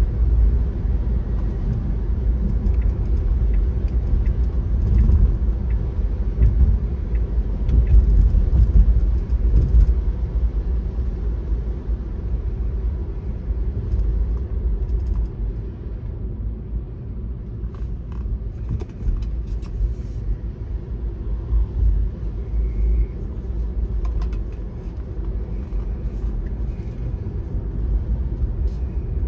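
Car driving on a wet road, heard from inside the cabin: a steady low road-and-engine rumble, a little louder in the first ten seconds, with a few faint ticks over it.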